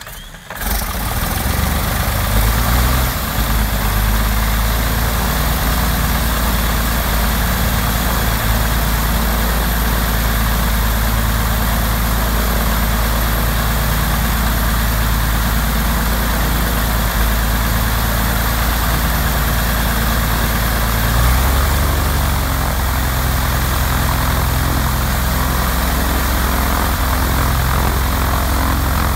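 Fokker D.VII's aero engine catching in its cold start and settling into steady running, turning its wooden two-blade propeller. About two-thirds of the way through the engine speed shifts briefly and its tone changes.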